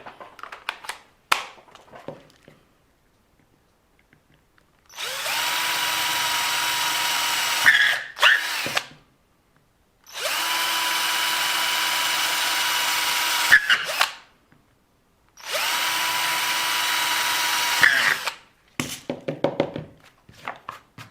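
Small power drill running in three spells of three to four seconds each, each spinning up to a steady whine, as it bores holes into a plastic RC car part so that thermoplastic can grip it. There are handling clicks and knocks before and after.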